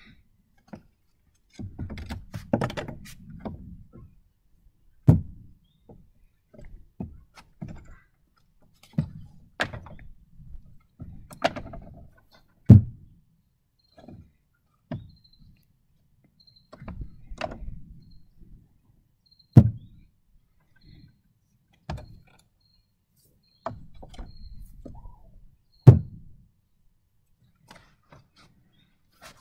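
Bowling pins knocking and clattering against the plywood deck of a homemade pinsetter and against each other as they are reset by hand. Several sharp thuds come a few seconds apart, with bouts of lighter rattling between.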